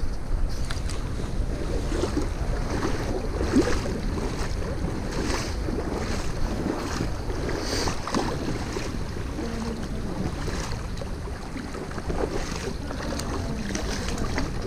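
Creek water rushing and splashing, with wind buffeting the microphone and scattered faint splashes throughout.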